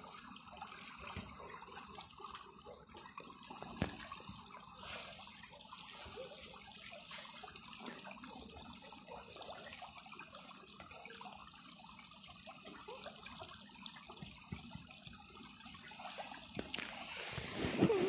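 Shallow stream babbling over stones, a steady trickling gurgle with small splashy ticks.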